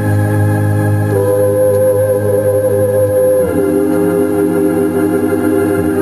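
Slow background music of long held organ-like chords, with a chord change about halfway through.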